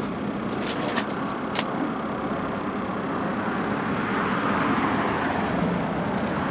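Steady hiss of road traffic on the highway bridge alongside, with a few light clicks about a second in.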